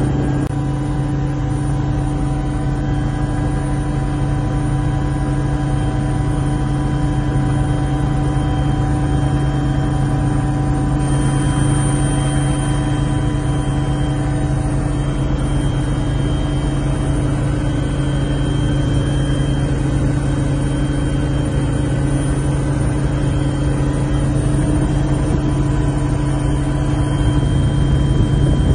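Helicopter in flight heard from inside the cabin: a steady, loud drone of engines and rotor, with a constant low hum and several steady higher tones above it.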